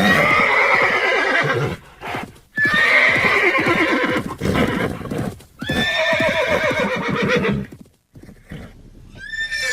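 Horse neighing: three long whinnies in a row, each a shaky, pulsing call, with short pauses between them and a fourth beginning near the end.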